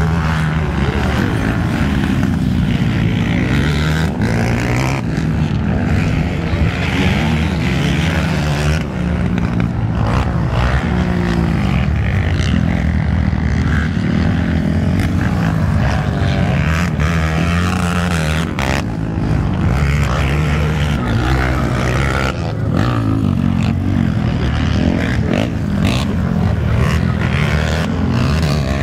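Several racing quad ATV engines revving hard, their pitch repeatedly rising and falling as the riders accelerate, shift and ease off over the dirt track's jumps and turns.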